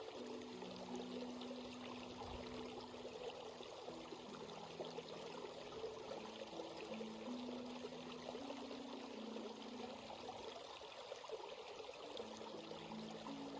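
Stream water running and trickling over rocks, a steady babble. Faint low held tones underneath shift pitch every second or so.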